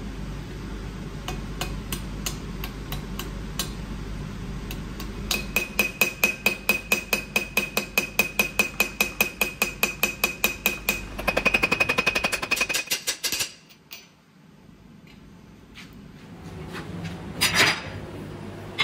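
Hammer striking metal in a steady run of light blows, about five a second, each with a ringing metallic note. Near the end the blows quicken into an almost continuous rattle, then stop, and one louder knock follows a few seconds later.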